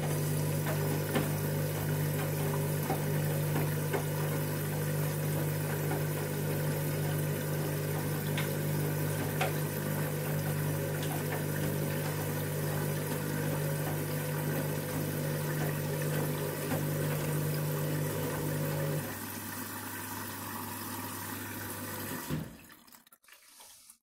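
Candy front-loading washing machine taking in water for its next fill: a steady rush of water with a mains hum from the machine while the drum turns the laundry. Near the end part of the hum drops away, and a few seconds later the water and hum cut off suddenly.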